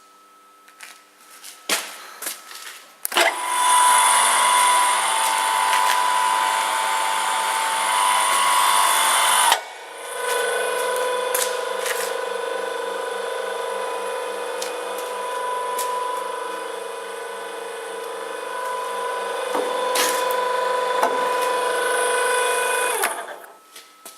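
Eisele VMS 300 cold circular saw cutting metal stock with a steady ringing whine. A few clicks come first. The saw runs for about six seconds, stops briefly with a sharp clack, then runs again for about thirteen seconds before stopping.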